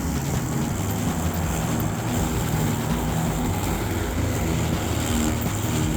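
Yeoman eM400C remote-control electric lawnmower running steadily while mowing a steep grassy bank, its blade and drive motors making a continuous mechanical whir.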